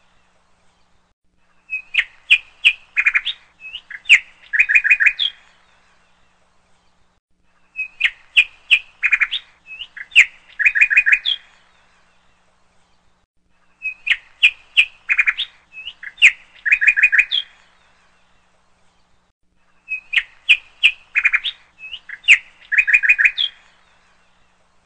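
Small songbird chirping: a phrase of about four seconds of quick high chirps and short trills, repeated four times, starting about every six seconds, with quiet gaps between. The repeats are so alike that they sound like a looped birdsong recording.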